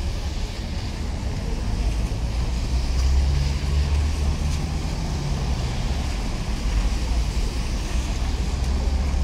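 Street traffic: cars driving past one after another on a wet road, their tyres hissing, over a steady low rumble.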